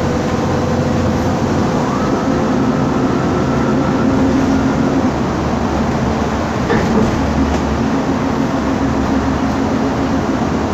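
Inside the cabin of a moving MAN Lion's Classic city bus: its MAN E2876 CNG engine and ZF Ecomat 6HP504C automatic gearbox running steadily under way. The engine note breaks off about halfway and comes back a little lower, with a single knock from the bus body a little later.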